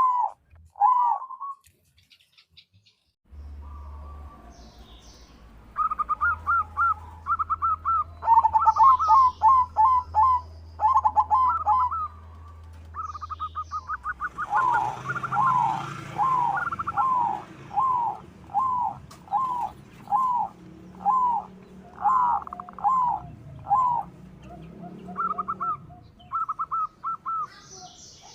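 Zebra doves (perkutut) cooing: long runs of short, falling, rhythmic coo notes, at times two birds overlapping at slightly different pitches. A steady low hum sits under the first half of the calls.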